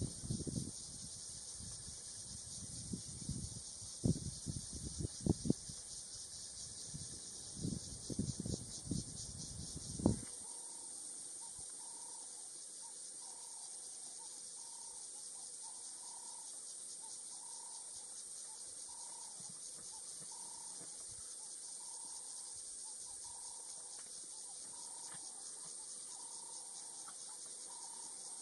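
Steady high buzzing of an insect chorus in the dry bush. During the first ten seconds there are irregular low thumps. After they stop abruptly, a short call repeats about once a second.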